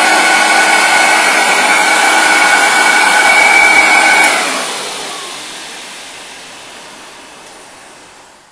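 Powerful air sled blower running loud and steady with a whine. About four seconds in it cuts off and winds down, its pitch falling and the sound fading out.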